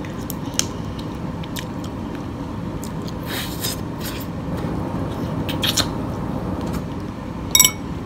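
Close-miked chewing and lip smacks while eating steamed blue crab meat, over a steady air-conditioner hum. Near the end comes a short, loud finger-sucking smack.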